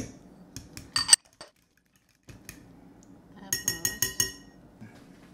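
Metal forks and glass dishes clinking against glass mixing bowls as egg yolks are tipped in and stirred into flour. A few sharp clinks come about a second in, and a quick run of ringing clinks comes around the four-second mark.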